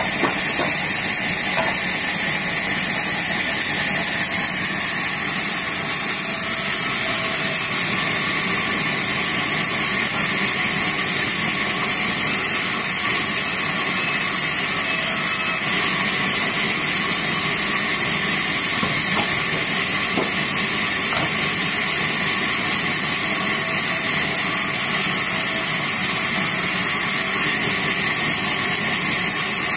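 Large vertical band saw running steadily while a wooden plank is fed through it and ripped: a loud, even hiss of the blade cutting through the wood over the hum of the machine.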